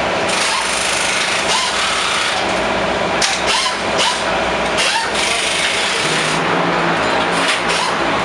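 Steady whirring of small motors and power tools, with light mechanical clatter throughout.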